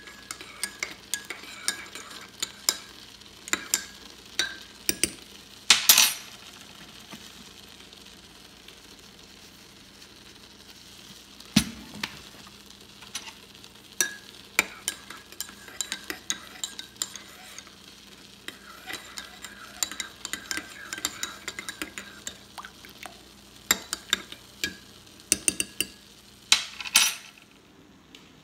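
Metal spoon stirring coffee in a ceramic mug, clinking against the sides in irregular runs. There is a quieter stretch a few seconds in, and a louder flurry of clinks near the end.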